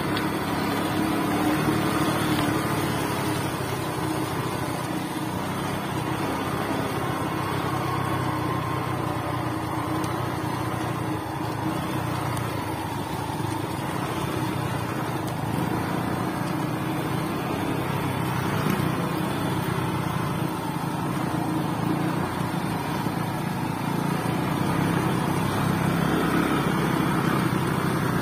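Small motorcycle engine running steadily at low road speed over a rough dirt track, heard from on the moving bike.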